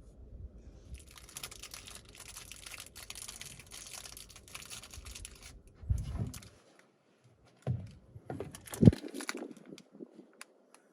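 Crinkling, rustling noise for several seconds, then three dull thumps, the last the loudest.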